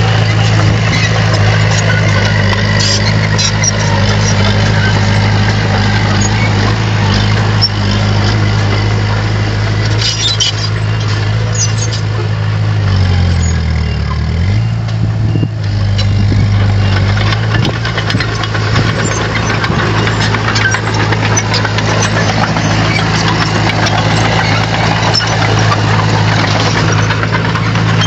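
Bulldozer's diesel engine running steadily. Its note sags lower for a couple of seconds about halfway through, then comes back up, with scattered clicks and clanks over it.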